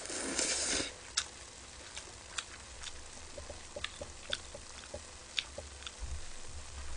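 A person slurping a mouthful of ramen noodles in the first second, then chewing with scattered small clicks and smacks of the mouth.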